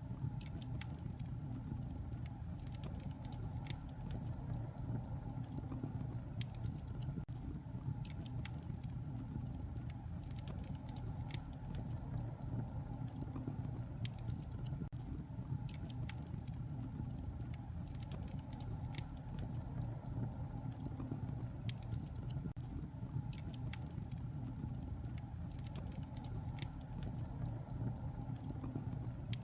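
Fire in a fireplace crackling: frequent irregular sharp pops and snaps over a steady low rumble of the flames.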